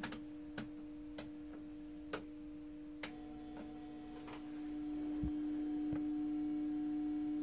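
A steady low tone from the running 1949 Admiral 24C15 vacuum-tube television, with a few sharp clicks. About three seconds in, around the change of test pattern from crosshatch to vertical bars, a click brings in further higher steady tones, and the sound then grows slightly louder.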